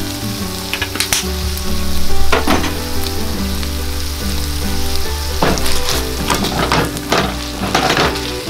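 Bacon and potato chunks sizzling as they fry in a stainless steel pan, with a spatula scraping and stirring them once early on and in several quick strokes over the second half.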